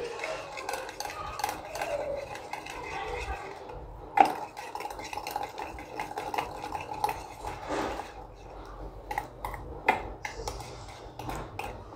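Wire whisk stirring and scraping a thick mix of yogurt and ground spices in a bowl, with a steady run of small clinks against the bowl and sharper knocks now and then, the loudest about four seconds in.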